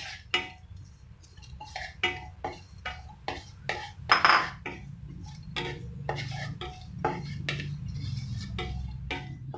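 Wooden spatula scraping and knocking against a non-stick kadai in quick, irregular strokes, stirring chopped almonds, cashews and cardamom as they fry in ghee. A steady low hum runs underneath.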